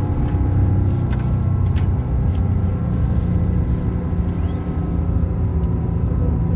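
Road and engine noise inside a moving vehicle at highway speed: a steady low rumble with a faint steady whine over it, and a few light clicks in the first two seconds.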